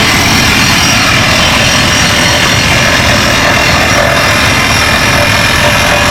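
Atlas Copco PowerRoc T45 drill rig running loud and steady, its engine and air system working after the clogged regulator vent, valves and hoses were cleaned.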